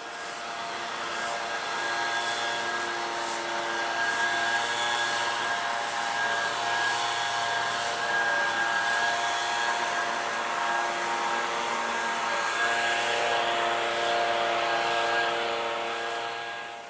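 A motor-driven cleaning machine running steadily: an even motor hum with a rushing hiss of air or spray. It swells in over the first couple of seconds and drops away near the end.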